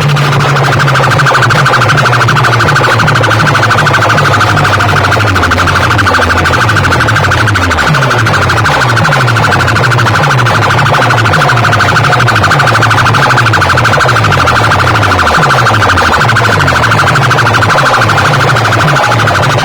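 DJ sound-box rig playing a track at full volume: a harsh, steady alarm-like tone held throughout over a repeating run of short falling bass notes.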